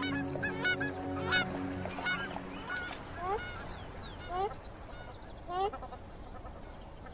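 Waterfowl calling: a quick run of short arched calls, then from about three seconds in single upward-sliding calls roughly once a second. Sustained music notes sound under the first three seconds.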